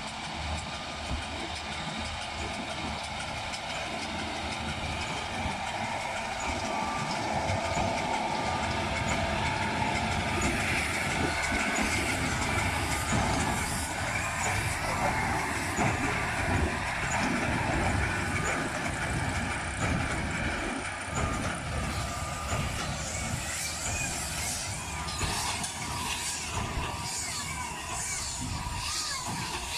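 John Deere L624 large square baler running behind its tractor: a steady engine and machinery noise with irregular low knocks, getting a little louder about eight seconds in.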